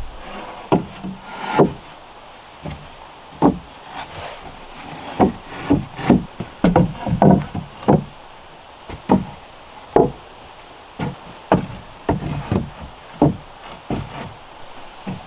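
Heavy wooden planks knocking and clattering against wooden joists as they are laid down and shifted into place, in irregular knocks about one or two a second.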